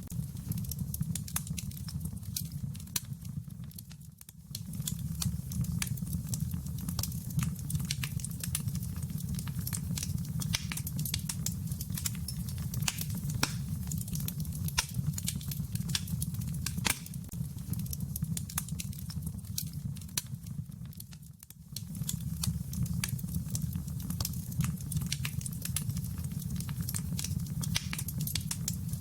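Wood fire crackling in a fireplace: irregular sharp pops and snaps over a low steady rumble, fading briefly twice.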